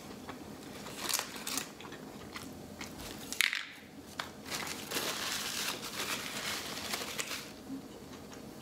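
Close-up eating sounds: a burrito being chewed, with small mouth clicks and a sharp knock a few seconds in. Crinkling and crunching follow from about five seconds in, as the foil wrapper and tortilla chips are handled.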